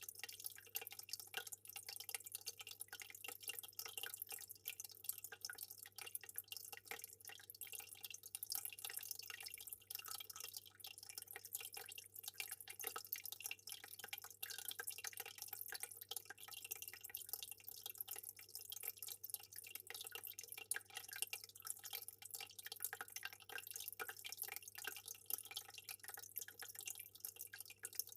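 Aquarium water trickling and dripping in a dense, even patter of small drops, over a steady low hum.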